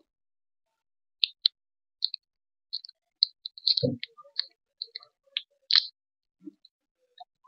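Plastic Oreo wrapper crackling as it is peeled and torn off a frozen ice-cream bar: a string of short, irregular crinkles, with one dull knock about four seconds in.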